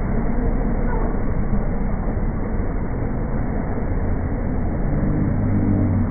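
Spinning carnival ride with umbrella-canopied swing seats running: a steady low mechanical rumble as the seats sweep past. A steadier hum joins about five seconds in.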